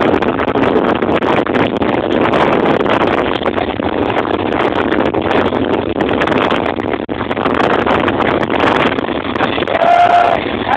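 Bajaj Pulsar 220 motorcycle's single-cylinder engine running, buried in heavy wind noise on the microphone, with a short higher tone near the end.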